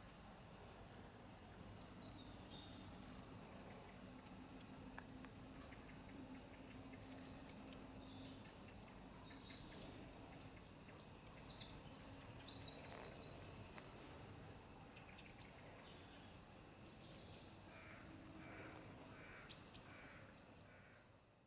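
Small birds giving short bursts of high chirps every two to three seconds over faint outdoor background noise, busiest about halfway through.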